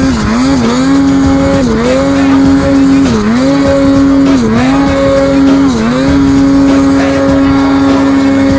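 Snowmobile engine held at high revs, dipping briefly and climbing back about every second and a half, then holding steady for the last few seconds.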